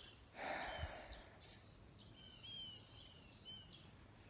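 Faint songbird chirps, short high notes repeated every half second or so, over quiet outdoor background noise, with a brief breathy hiss about half a second in.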